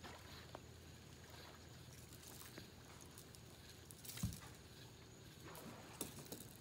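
Near silence, with a few faint clicks and one soft knock about four seconds in.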